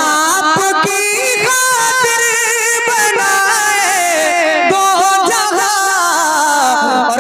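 A man singing a naat (Urdu devotional poem) into a stage microphone. He holds long, ornamented notes whose pitch wavers and slides, without clearly sung words.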